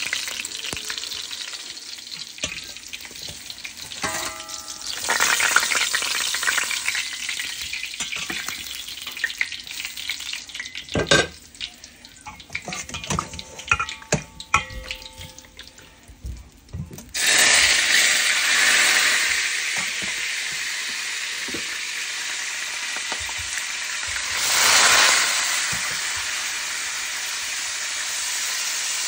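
Food frying in hot vegetable oil in a metal pot: a hissing sizzle, with a metal spoon clinking and scraping against the pot as fried fish pieces are lifted out. About 17 seconds in, a much louder sizzle starts suddenly as raw meat goes into the hot oil, and it swells again near the end.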